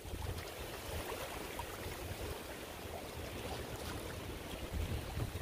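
Wind rumbling on the microphone over small waves lapping against a rocky lake shore, a steady noise with no single loud event.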